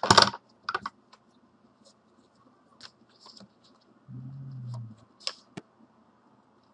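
Scissors cutting into a rolled paper tube: a sharp snip at the start, then a few scattered snips and paper rustles. A short low hum sounds about four seconds in.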